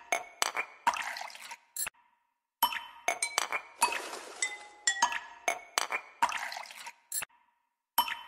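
Background music made of clinking, glass-like percussive hits with ringing tones, playing a repeating phrase that breaks off briefly about two seconds in and again about seven seconds in.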